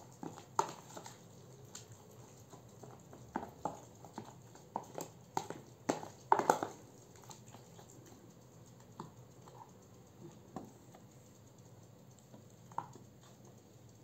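Scattered light clicks and taps of hands handling grape leaves and filling at metal trays and plastic tubs while rolling stuffed vine leaves. The taps come thickest in the middle, with the loudest pair about six and a half seconds in, and thin out to occasional ticks near the end.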